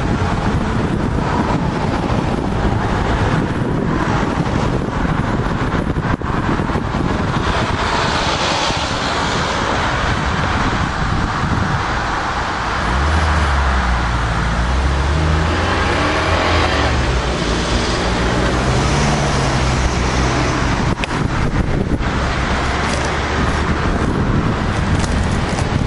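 Road traffic at a city intersection: a steady rush of passing cars, with a nearby engine's low drone stepping up and down in pitch for several seconds in the middle.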